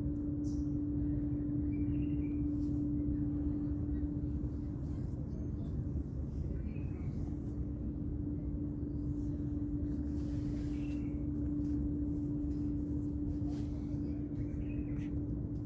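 Steady low outdoor rumble with a constant hum running through it, and faint short chirps every few seconds.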